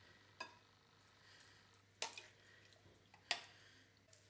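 A spoon clinking sharply three times while tinned sliced peaches are spooned from the tin into a glass bowl.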